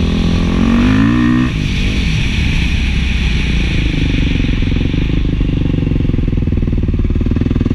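Beta 500 dual-sport motorcycle's single-cylinder four-stroke engine running through an FMF 4.1 muffler while riding. The revs climb, drop abruptly about a second and a half in, then build slowly again.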